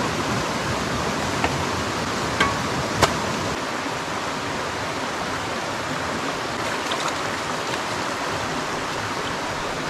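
Shallow mountain brook running steadily over rocks, with three sharp knocks of a shovel against stones between about one and a half and three seconds in.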